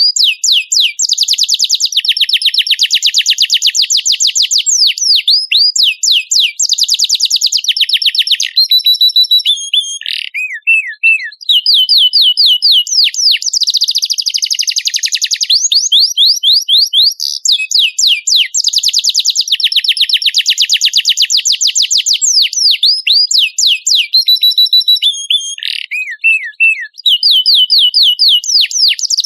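Domestic canary singing a loud, continuous song of fast trills and rapid repeated chirps, the same sequence of phrases coming round again about every fifteen seconds.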